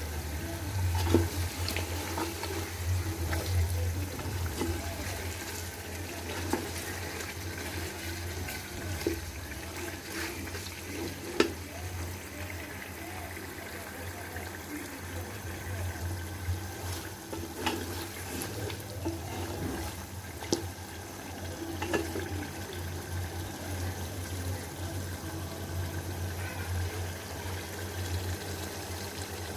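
Chicken braising in spiced masala in a pot on the stove: a steady rushing sizzle over a low hum, with a few sharp clicks and knocks scattered through.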